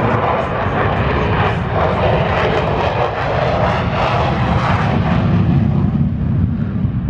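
USAF F-35A Lightning II's single jet engine, a loud, dense rumble of jet noise as the fighter flies its display; the higher part of the noise fades after about five seconds, leaving a low rumble.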